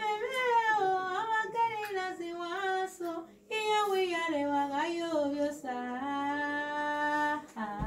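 A woman singing a slow melody unaccompanied, in long held and gliding notes, with a short pause about three seconds in and a long held note near the end.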